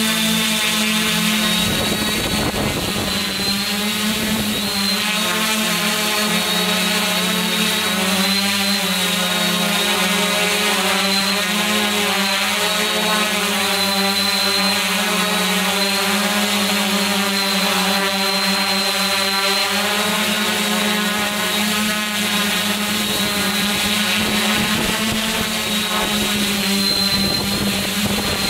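Multirotor drone's electric motors and propellers buzzing steadily. Several tones drift slowly up and down against each other as the motors change speed, over a thin high whine.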